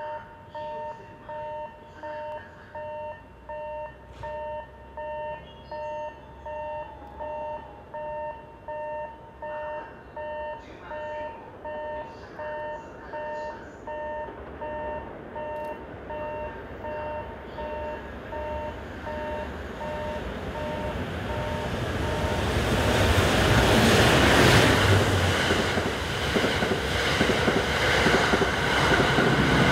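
An electronic warning signal beeps in two tones, about one and a half beats a second. From about twenty seconds in, the Cassiopeia sleeper train, hauled by an electric locomotive, passes close by. The sound swells as the locomotive goes past and continues as the passenger cars roll by.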